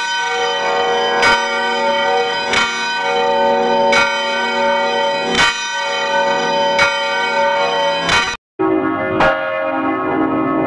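Church bell tolling, struck about every second and a half with its ring carrying on between strokes. About eight seconds in it cuts out abruptly and a different, deeper-sounding bell takes over, tolling at a similar pace.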